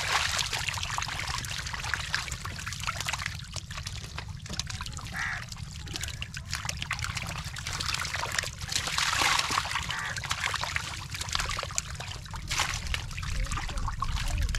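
Wet mud and shallow water splashing and squelching as fish are grabbed by hand and dropped into a metal bowl, a run of small splatters and wet clicks, with louder bursts of splashing a little over halfway through and again near the end.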